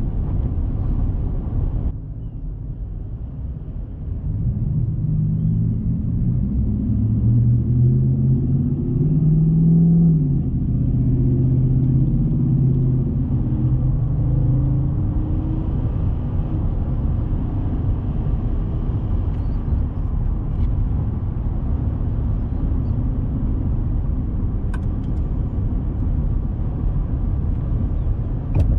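Ford 5.0 L Coyote V8 of a 2021 F-150 on its stock exhaust, heard from inside the cab as the truck accelerates moderately. The engine note rises for several seconds, drops at a gear change about ten seconds in, holds briefly, and then fades into steady tyre and road rumble as the truck cruises.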